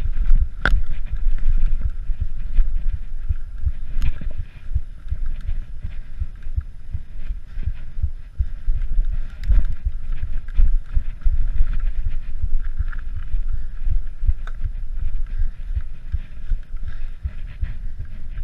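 Mountain bike rolling over bare sandstone slickrock: a constant low rumble full of small knocks and rattles from the bike over the rock, with a few sharper clacks near the start, about four seconds in and about nine and a half seconds in.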